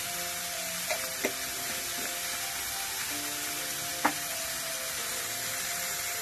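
Soft background music over a steady sizzle of mango and dry fish frying in the pot, with three light knocks: two about a second in and one about four seconds in.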